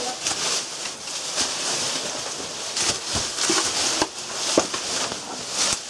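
Rustling and scraping with scattered sharp clicks and knocks as people clamber through a narrow rock squeeze: clothing, packs, shoes and hands rubbing and tapping against the rock close to the microphone.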